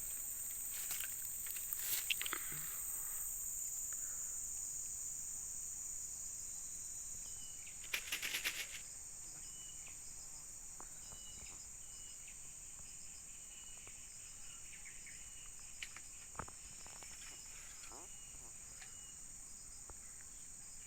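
Steady high-pitched chirring of insects, with faint short chirps repeating in the background. About eight seconds in there is a brief rattle of quick clicks.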